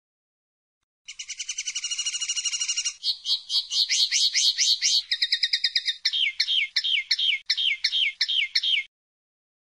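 Common linnet singing a long varied song phrase: about a second in it starts with a fast, even trill, moves into quick falling notes, then slower falling notes about four a second, and stops sharply near the end.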